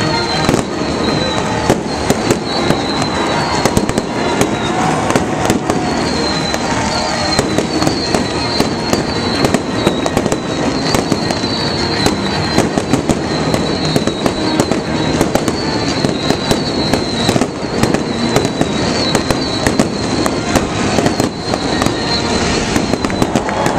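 Fireworks display: aerial shells bursting and crackling in a rapid, nearly continuous run of sharp bangs.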